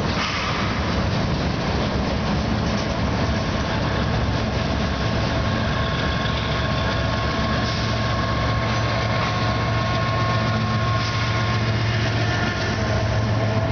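Freight cars rolling past close by, a steady rumble of wheels on rail with a faint steady whine over it. A diesel locomotive engine's low drone grows louder in the second half as a locomotive comes alongside.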